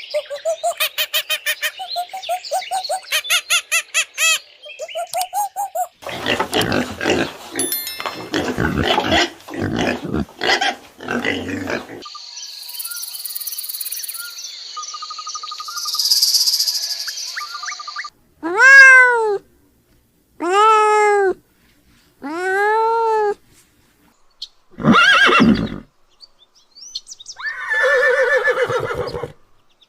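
A run of different animal calls cut one after another. First come rapid repeated calls, then harsher noisy calls, then high chirping, then four separate arching calls about a second apart, and a last harsh call near the end.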